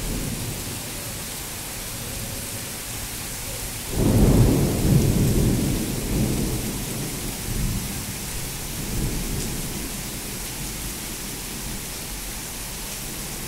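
Steady heavy rain hissing, with a sudden clap of thunder about four seconds in that rumbles on in several surges for some six seconds before fading back under the rain.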